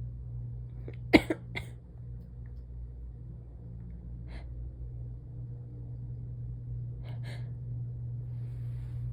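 A person sneezes once, sharply, about a second in, with two quick breaths right after. Fainter short breaths follow near the middle and near the end, over a steady low hum.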